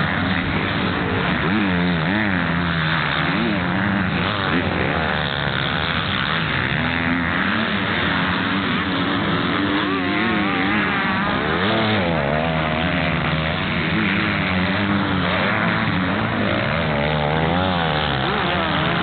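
Several motocross bikes' engines revving up and down over one another as riders work the throttle through the jumps and turns of a dirt track, their pitch rising and falling again and again.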